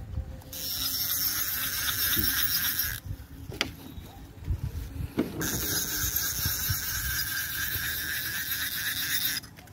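Fishing reel's drag buzzing in a high, steady whir as a hooked fish pulls line. It runs in two long stretches with a break of about two seconds in the middle, over low handling bumps and rustling.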